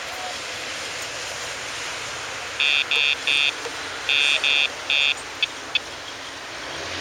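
A run of six short, high-pitched electronic beeps in an uneven rhythm, then two quick clicks, over a steady outdoor noise.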